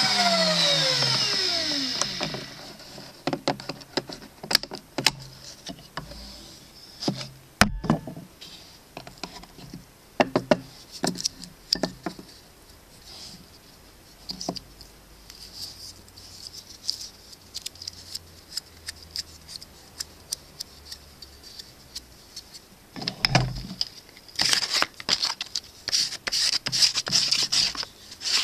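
CNC router spindle winding down, its pitch falling over about two seconds. Then scattered clicks and knocks as the freshly milled wooden wheel is handled. Near the end comes sandpaper rubbing the wood in quick strokes.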